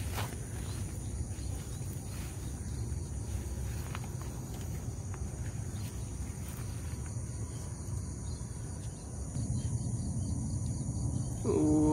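Insects droning steadily at two high pitches over a low rumble, with a few rustling footsteps in grass near the start.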